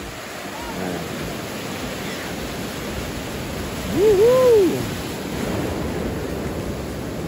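Surf breaking and washing up the beach at the waterline, a steady rushing. About four seconds in, a short two-part call that rises and falls in pitch stands out above the surf as the loudest sound.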